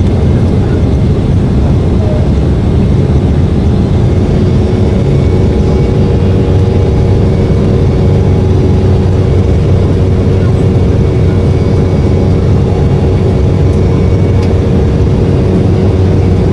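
Airliner in flight, its engines and airflow making a loud, steady drone with a low rumble and a faint steady hum over it.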